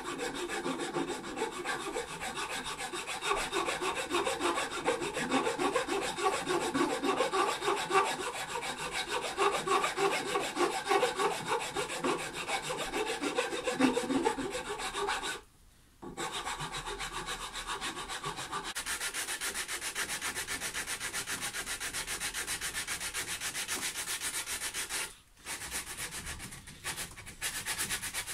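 Roasted maple guitar headstock being shaped by hand with a file and sandpaper: rhythmic back-and-forth rubbing strokes on the wood, broken by two short gaps, about halfway and near the end.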